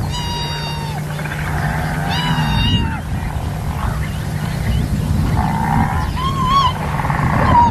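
Several high-pitched animal calls, bleat-like: a long level call at the start, another about two seconds in, and a few shorter, wavering ones near the end, over a steady low hum.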